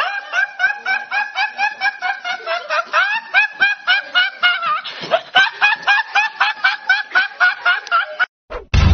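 A teenage boy laughing uncontrollably in a rapid run of short, high-pitched rising squeals, about four a second, that cuts off suddenly about eight seconds in.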